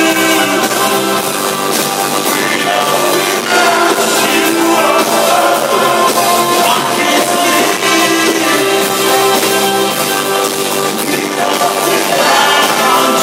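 A live band playing loud amplified music on stage, with a kit drummer and a singer, heard from within the audience.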